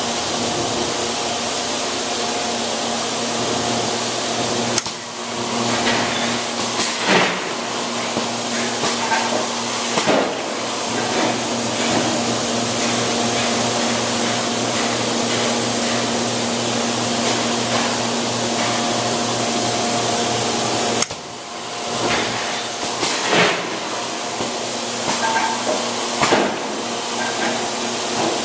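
Industrial machinery running with a steady hum and hiss. It works in a repeating cycle: about 5 and 21 seconds in the noise drops briefly, then a few sharp knocks follow.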